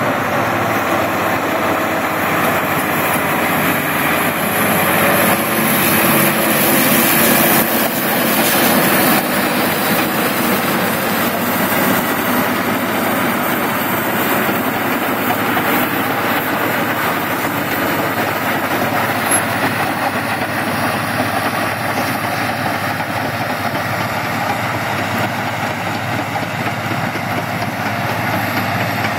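Diesel engine of a heavy crawler tractor running steadily under load as it pulls a cable plow through the ground, with its tracks clattering.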